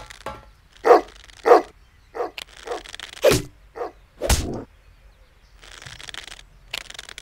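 Wordless cartoon monkey vocalisations: a string of short grunts and yelps, with two thuds about three and four seconds in and a soft hiss around six seconds.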